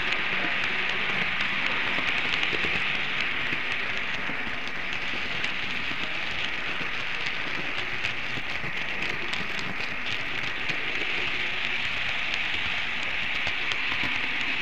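Märklin model train rolling along the layout's track, heard from a camera riding on the train: a steady hiss with many faint clicks from the wheels and running gear on the rails.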